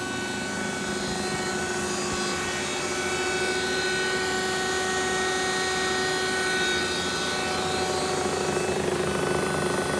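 Kent JHC-18S centerless grinder running steadily under power, a constant machine hum with a held whine from its motors and pumps.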